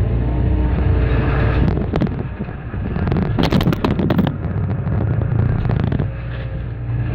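Excavator diesel engine running steadily under hydraulic load while its concrete pulverizer jaws work the rubble, with a burst of sharp cracking and crunching about three and a half to four seconds in as concrete breaks.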